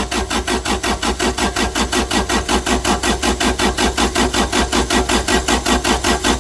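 Diesel Onan Cummins generator engine cranking over on its starter in an even rhythm of about five pulses a second without firing. It is a no-start, which the mechanic suspects is a fuel problem.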